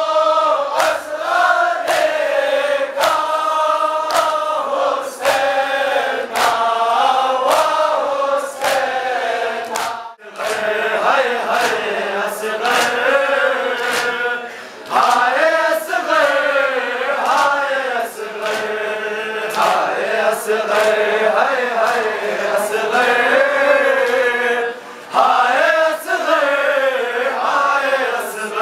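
A group of men chanting a Muharram noha (lament) in unison, with short breaks between lines. Rhythmic chest-beating (matam) strikes land about once every three-quarters of a second.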